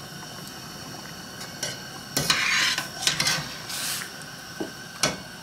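Metal spoon scraping and clinking against a stainless steel pot as tomato paste is stirred into the rice. There are a few scrapes and knocks, with a sharp clink about five seconds in.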